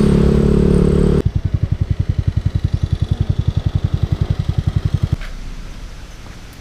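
Motorcycle engine running, then settling into a low, pulsing idle of about ten beats a second just over a second in, and cut off about five seconds in.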